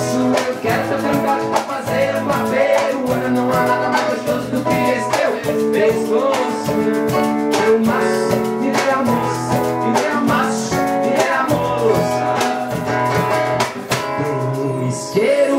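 Live forró band playing: a strummed acoustic guitar over a steady beat of cajón and small percussion kit, in a lively Brazilian rhythm.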